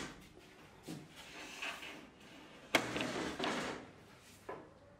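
A flat MDF board being set down and slid across an aluminium CNC router frame: scraping and sliding with a single sharp knock a little past halfway.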